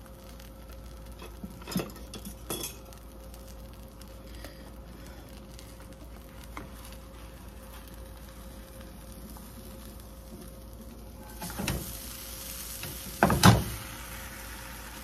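A quesadilla sizzling in a stainless steel skillet, with a couple of light knocks about two seconds in. Past the two-thirds mark the sizzle grows louder, and a spatula scrapes and knocks against the pan as the quesadilla is lifted and flipped; these are the loudest sounds.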